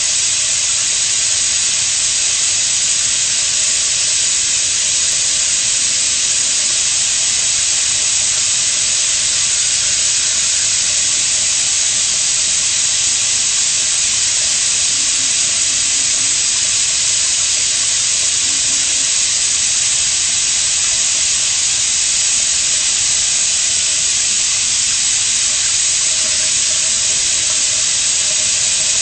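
A loud, steady hiss that runs on without a break or change in level.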